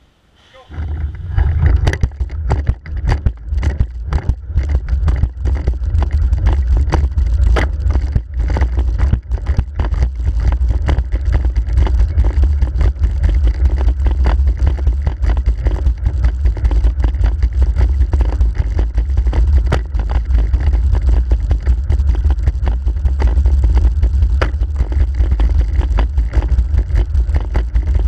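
A racing wheelchair pulls away from a standstill about a second in and rolls at speed. There is a loud, steady low rumble from the wheels and frame through the chair-mounted camera, with frequent sharp knocks from the push strokes on the rims, densest in the first few seconds.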